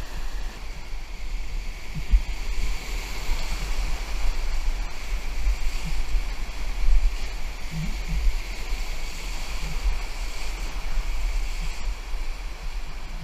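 Whitewater rapids rushing close around a paddleboard running through them, a steady wash of churning river water. Under it is an uneven low rumble of wind buffeting the camera microphone.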